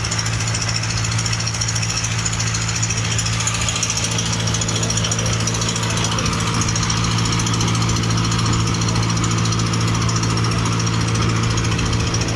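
Motorboat engine running steadily under way, a loud, even low drone.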